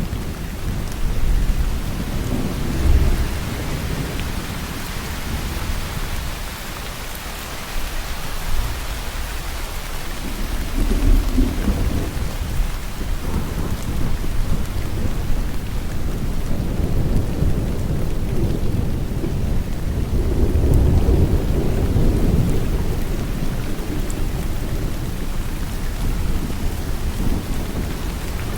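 Steady heavy rain falling, with rolling rumbles of thunder swelling and fading several times underneath.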